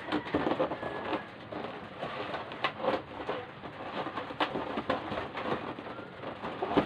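Latex balloons being handled and tied into a cluster: rubber rubbing and squeaking, with scattered light knocks.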